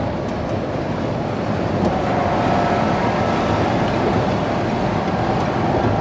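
Steady cabin noise inside a two-door 2021 Ford Bronco with a hard top and factory sound-deadening, cruising on the highway at about 70 mph with the engine near 2100 RPM: a continuous drone of road, tire and wind noise reading about 68–69 dB(A) on a sound meter.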